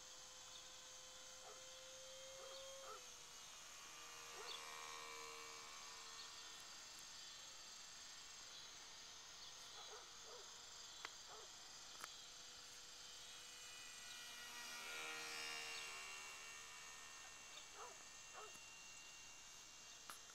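Faint whine of the E-flite Curtiss N9 model plane's electric motor and propeller in flight. Its pitch rises and falls with throttle and flight path, and it swells and sweeps down in pitch as the plane passes closest, about two thirds of the way through. A few light clicks are heard over steady high insect chirring.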